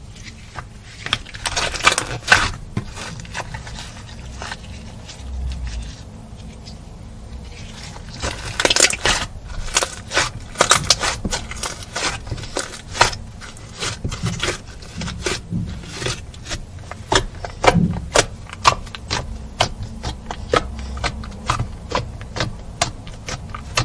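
Slime being mixed and pressed by hand, giving many irregular sharp clicks and pops, busier in the second half.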